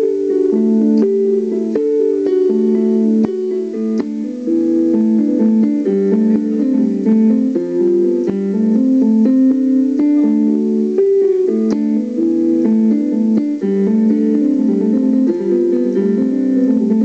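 Instrumental background music of plucked guitar and keyboard, steady held notes changing every second or so.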